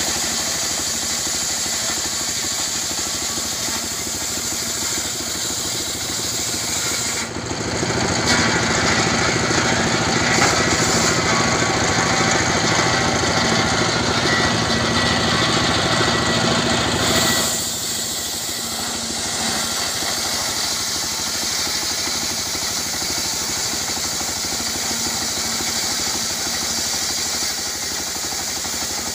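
Diesel engine running steadily, driving the circular saw blade of a homemade mobile sawmill. From about seven seconds in until about seventeen seconds the sound is louder and harsher, as the blade cuts through a log.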